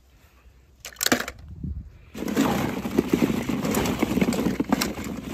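Hollow plastic ball-pit balls clacking together: a few sharp clacks about a second in as the small toy tractor drops among them, then a dense continuous rattling and clattering from about two seconds as a hand rummages through the balls.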